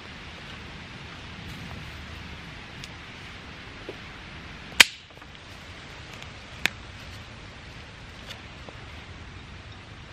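Steady outdoor hiss, like wind in the woods, broken by a few sharp cracks of dry wood. The loudest comes about halfway through, with a second a couple of seconds later.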